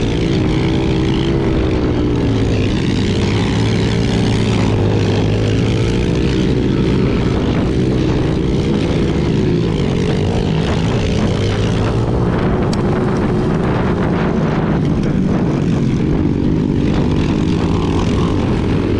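Yamaha TTR110 pit bike's small four-stroke single-cylinder engine running hard under racing throttle, its pitch rising and falling as revs change, with other pit bike engines close by.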